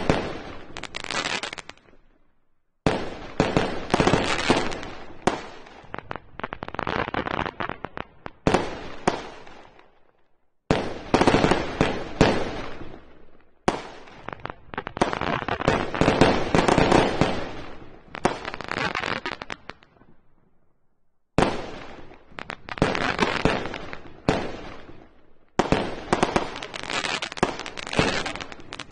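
Fireworks display: shells bursting in rapid volleys, each a dense run of bangs and pops lasting a few seconds that starts suddenly and trails off, with brief pauses between volleys.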